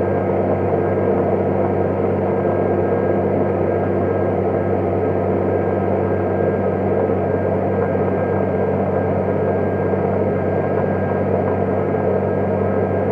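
New Holland T7050 tractor's six-cylinder diesel engine running steadily under load, pulling a Vogel & Noot plough.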